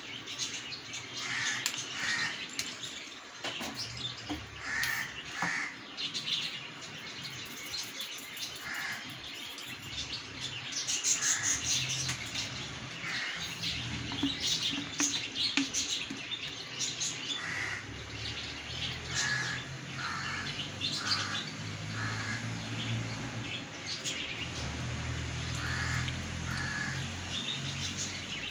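Birds calling over and over in short, harsh, crow-like calls, with a low hum underneath that grows stronger in the second half.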